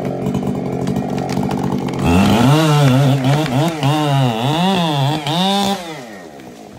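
Husqvarna 592XP two-stroke chainsaw running in the back cut. About two seconds in it gets louder, its pitch rising and falling over and over as the throttle is worked up and down, then it dies away near the end as the tree begins to fall.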